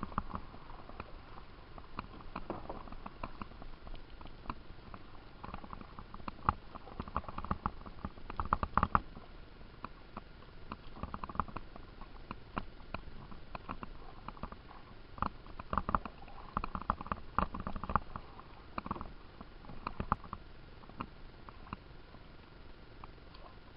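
Canoe paddling: irregular splashes and drips of paddles in the water, with scattered knocks and taps.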